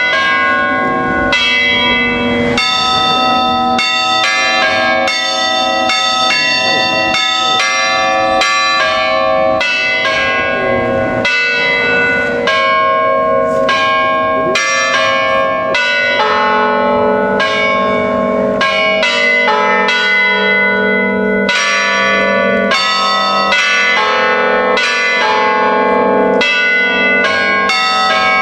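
Church bells of a five-bell ring in A (La3) striking in quick succession, about two strokes a second at several different pitches, each tone ringing on under the next. A deeper bell's tone grows stronger about halfway through.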